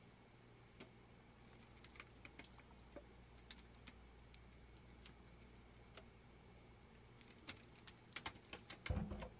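Faint, scattered light clicks of a metal measuring spoon and sauce bottle while soy sauce is measured over the bowl, then a quick run of louder taps as the spoon is tipped and scraped against a plastic bowl of raw chicken, ending in a soft thump about nine seconds in.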